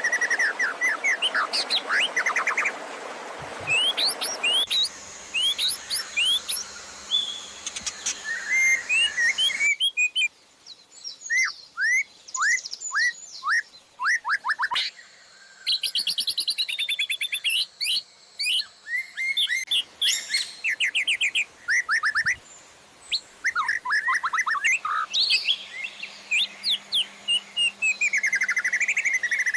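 Dense songbird song from a masteran training track for white-rumped shamas: rapid trills, chirps and sharp sweeping whistles layered from several birds. The background changes abruptly every few seconds where separate recordings are spliced together.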